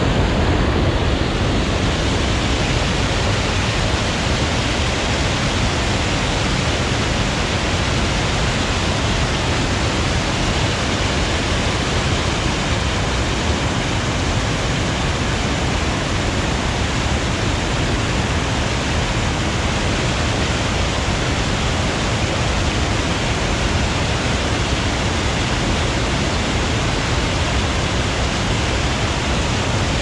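River water pouring over a low concrete weir and churning in the whitewater below: a steady, unbroken rush.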